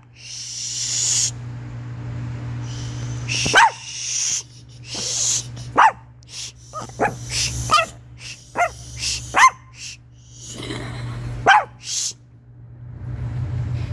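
A chihuahua making odd vocal noises: about eight short, sharp yips and barks spread out irregularly, mixed with breathy huffing sounds.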